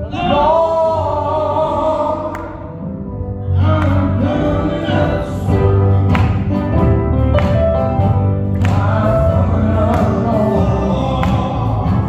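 Traditional gospel quartet: several male voices singing in harmony, backed by electric guitar and bass. A steady beat picks up about four seconds in.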